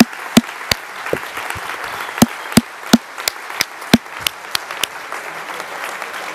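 Crowd applauding, with loud, sharp single claps standing out at about three a second until about five seconds in, then an even patter of clapping.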